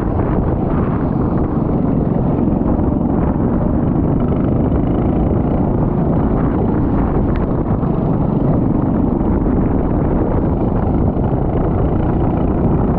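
Go-kart engine running steadily at racing speed, heard on board and largely buried under heavy wind buffeting on the microphone.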